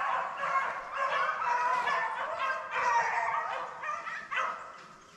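A pack of beagles baying on a rabbit's trail, several voices overlapping, thinning out and fading away near the end.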